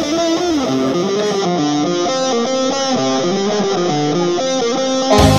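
Background music: a melody of short picked notes over a light accompaniment, with a louder, fuller section with a steady beat and bass coming in near the end.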